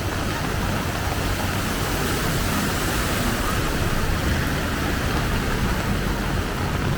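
Heavy rain pouring down steadily, with the low hum of a motor vehicle's engine underneath, growing a little stronger near the end.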